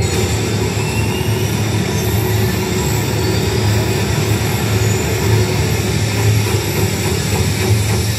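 Show soundtrack over loudspeakers: a loud, steady low rumbling drone with a few faint rising whistles in the first half, a sound effect accompanying the projected fireworks.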